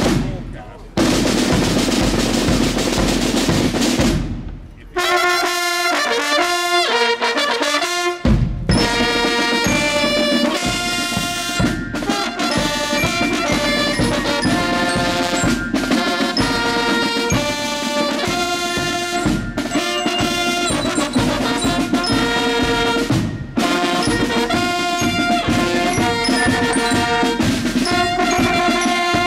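Brass band music with drums. For the first few seconds the drums play alone, then about five seconds in the brass comes in with a melody that runs on over the drumming.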